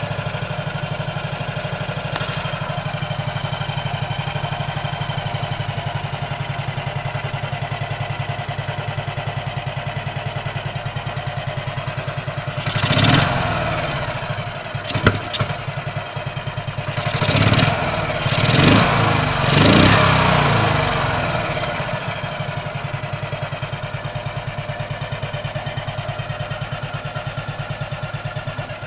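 1961 Heinkel Tourist 103 A2 scooter's single-cylinder four-stroke engine, on a new Keihin carburettor with no air filter, idling with an even beat. It is revved once about halfway through, blipped briefly, then revved three times in quick succession before it drops back to idle. Idle is fine, but the engine stumbles when the throttle is snapped open from idle, which the owner puts down to mixture or jetting.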